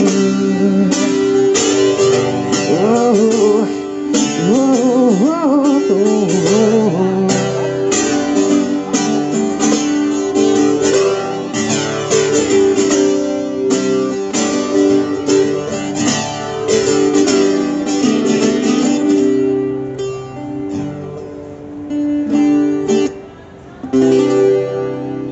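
Live band playing the instrumental close of a song: strummed acoustic guitar chords in a steady rhythm, with a sliding melody line over them during the first several seconds. The playing thins out about twenty seconds in and briefly drops away before the final chords.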